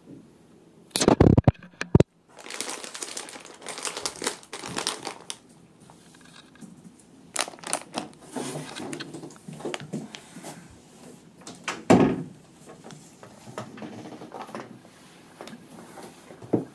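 Plastic bag of mung bean glass noodles crinkling irregularly as it is handled and turned over, with a few sharp thumps about a second in, at two seconds and near twelve seconds.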